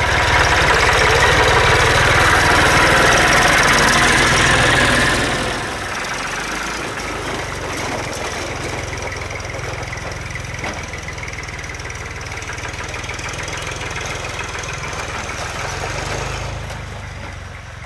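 Massey Ferguson 240 tractor engine running as the tractor drives close past, loud for the first five seconds. It then drops to a steadier, quieter rumble as the tractor pulls away, and fades near the end.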